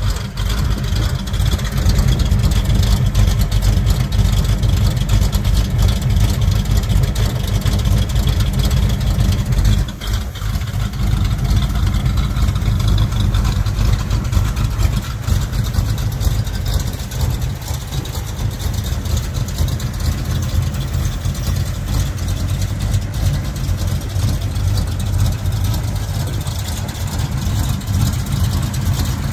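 A Pontiac 455 V8 in a 1980 Trans Am idling with a steady, deep rumble.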